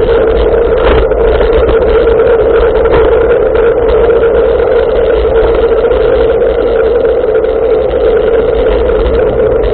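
Bicycle riding steadily along a tarmac road: a loud, even rumble of wind and tyre noise on a handlebar-mounted camera's microphone.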